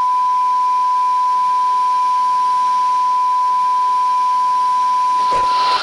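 A steady electronic beep at a single pitch, held for about six seconds, switching on and off abruptly, over a faint hiss.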